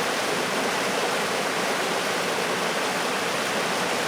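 Steady rush of flowing water from a stream or small waterfall, an even hiss with no breaks.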